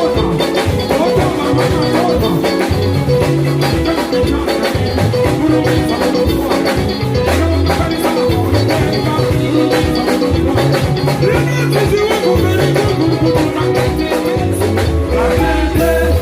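Live band playing Congolese rumba: held bass-guitar notes under a busy, steady drum and percussion beat, with guitar lines on top.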